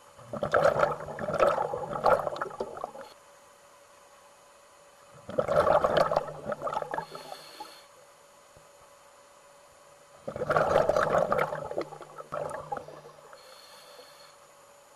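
Water bubbling and churning, recorded underwater, in three bursts of about three seconds each, roughly five seconds apart.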